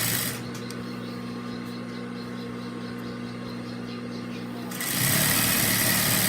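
Juki DDL-8700 industrial sewing machine. Its fast-running head stops just after the start, leaving the 250-watt clutch motor humming steadily with the pedal released. About five seconds in the pedal engages the clutch again and the head runs at high speed with a loud, even whir.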